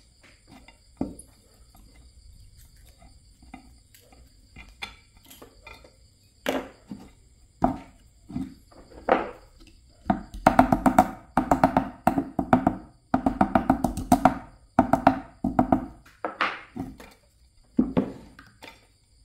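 Hammer striking copper wire on a wooden block: scattered single knocks, then runs of rapid blows from about ten seconds in, each blow with a short ringing tone.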